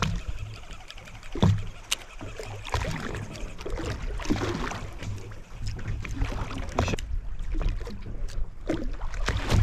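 A boat's engine running low and steady, with scattered knocks and clatter on board and a wash of water and wind.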